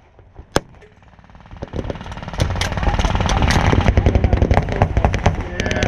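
Blank-firing reenactment guns: a single sharp shot about half a second in, then from about two seconds in a loud, continuous rattle of rapid automatic gunfire with a low rumble under it.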